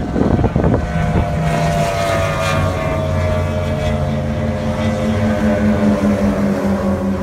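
Outboard motor of a speedboat running flat out on the water, its engine note falling slowly in pitch as the boat goes by. Wind buffets the microphone in the first second.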